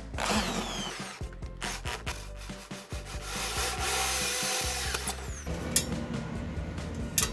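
Electric drill with a hole saw cutting through a sheet-metal box lid, in two spells: a short one at the start and a longer, louder one about three seconds in. Two sharp clicks near the end.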